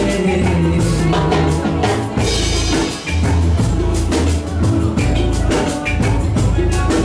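Live amplified band music with a drum kit, guitar and electronic keyboard, the drums and a heavy bass to the fore; the playing drops off briefly about three seconds in and then carries on.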